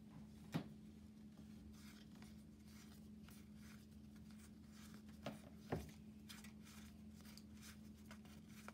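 Faint sliding and flicking of Magic: The Gathering cards as a small stack is sorted through by hand, with a few louder taps, one about half a second in and two near six seconds. A steady low hum runs underneath.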